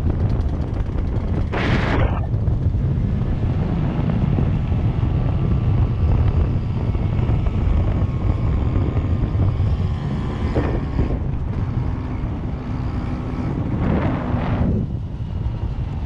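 Vespa scooter being ridden along a road: its engine runs steadily under heavy wind rumble on the microphone. Brief hissing gusts come about two seconds in and again near the end.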